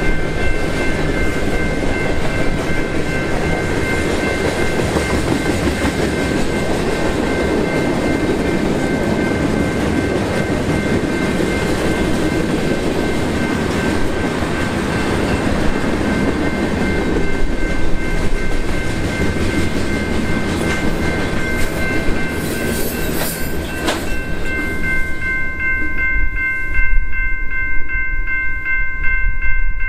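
Freight train cars rolling through a grade crossing, wheels rumbling and clacking on the rails, with the crossing warning bell ringing steadily over it. About 24 seconds in the last car clears and the rumble stops, leaving the bell ringing on alone, its rapid strokes now clear.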